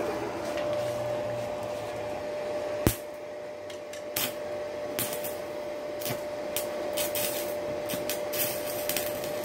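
Stick welding at 50 amps with a Hilda MMA-200A inverter welder: the electrode is struck on rusty steel bars, with one sharp snap about three seconds in and then irregular crackling snaps as the arc sparks. A steady whine from the running welder sounds under it all.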